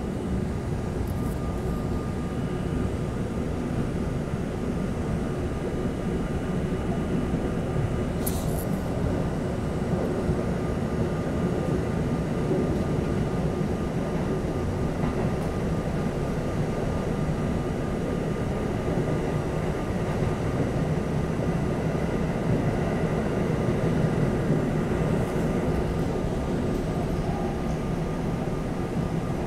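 R32 subway car running on elevated track, heard from inside the car: a steady rumble of wheels on rail with faint steady motor tones. A brief high squeak comes about eight seconds in.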